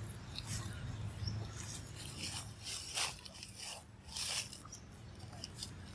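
Dry rustling and crackling with a run of short scrapes from about two to four and a half seconds in, as of movement through dry leaf litter, over a steady low hum.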